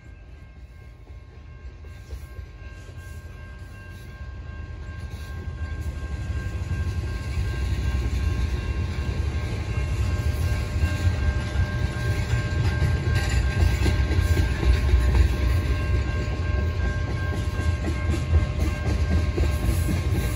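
Freight train of tank cars rolling past at trackside: a low rumble of steel wheels on rail with clickety-clack, growing louder over the first several seconds and then holding steady.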